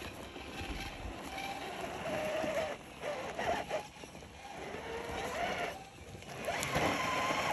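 Electric motor and gearbox of an RC rock crawler whining, the pitch rising and falling with the throttle as the truck crawls over rocks.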